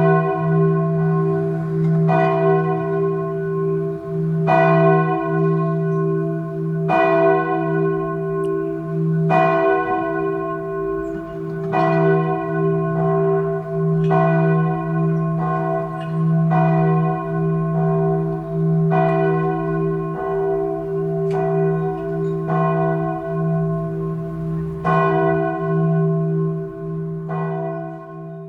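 A church bell tolling slowly, about a dozen strokes at a steady pace of roughly one every two and a half seconds. Each stroke rings on into the next over a steady low hum.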